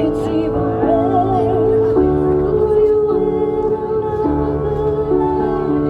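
A song: a singing voice over held keyboard chords that change about once a second.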